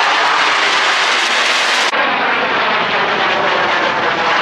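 Loud jet roar of Blue Angels jets flying past low overhead, a dense steady rush with a brief dip about two seconds in.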